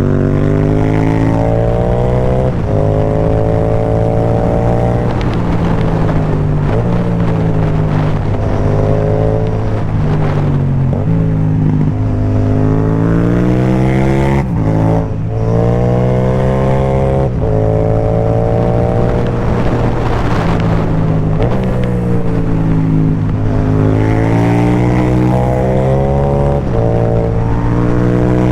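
Yamaha MT-07's parallel-twin engine through a carbon Akrapovic exhaust with no dB killer, under hard acceleration: the pitch climbs and drops back at each gear change, over and over, with a brief lift of the throttle around the middle.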